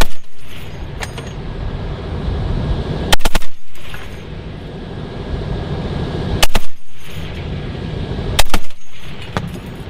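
12.7×99 mm (.50 calibre) heavy machine gun on a remote weapon station firing three short bursts of a few shots each. A steady low rumble continues between the bursts.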